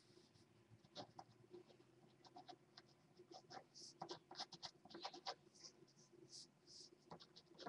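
Near silence with faint, irregular clicks and scratching sounds, several a second, over a faint steady hum.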